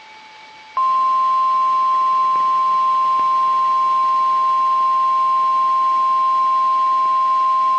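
EAS weather-radio warning alarm tone, a loud steady single-pitch tone near 1050 Hz that starts just under a second in after a faint hiss and holds without a break. It is the attention signal announcing the tornado warning that follows.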